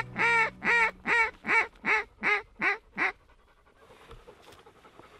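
A fast, even run of about eight loud goose honks from a single voice, about three a second, each with a sharp upward break in pitch. The run stops about three seconds in.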